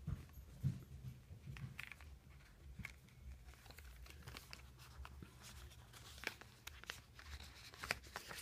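Faint rustling and crinkling with scattered light clicks as the cardboard and plastic packaging in an iPhone box is handled and its accessories are taken out.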